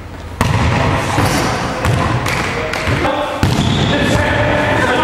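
A volleyball being struck and bouncing in an echoing sports hall: a string of sharp smacks and thuds, with players' voices calling out in the second half.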